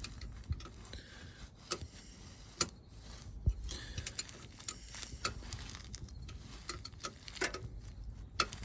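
Ratchet wrench clicking and metal tools clinking as the nuts on new driveshaft U-bolts at the rear yoke are tightened, in an irregular series of sharp ticks.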